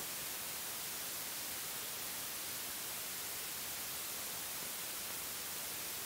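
Steady hiss of an old film soundtrack, with no other sound.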